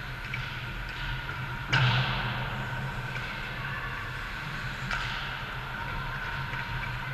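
Ice hockey play in an arena: a steady hum throughout, with one sharp crack of a hit just under two seconds in and a lighter one about five seconds in.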